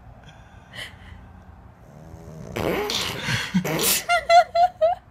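A sleeping puppy's noises: a loud, rough, breathy burst about halfway through, then a run of five quick high squeaks near the end.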